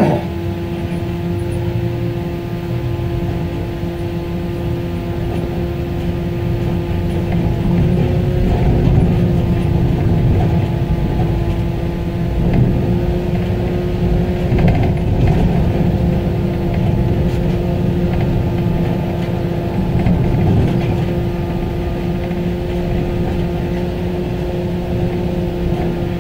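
Tractor-drawn aerial ladder truck driving, heard from inside its rear tiller cab: a steady low rumble of engine, driveline and road, with a steady hum running through it that grows a little louder about a third of the way in.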